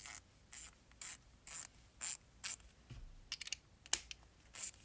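Freshly rebuilt Snap-On 1/4-inch drive ratchet being worked back and forth, its pawl ratcheting in short rasping strokes about twice a second, with a few sharper clicks a little past halfway.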